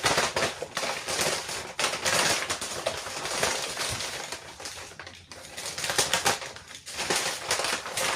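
A stray animal crunching dry pet food: a dense run of small crunches and clicks.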